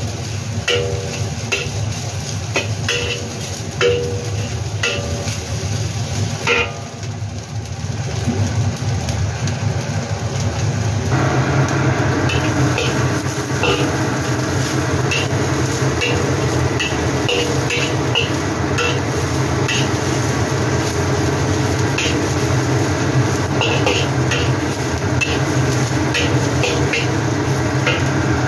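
Metal spatula scraping and clinking against a wok as tempe strips are stir-fried, over a steady frying sizzle. The sizzle grows louder about eleven seconds in.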